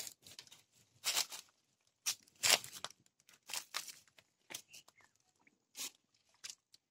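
Dry bamboo leaves and twigs crunching and crackling in irregular short bursts as they are shifted and stepped on. The loudest burst comes about two and a half seconds in.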